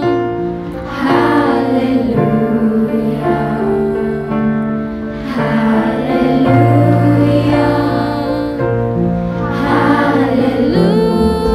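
A woman singing a song in phrases with held notes, over an instrumental accompaniment of long sustained chords.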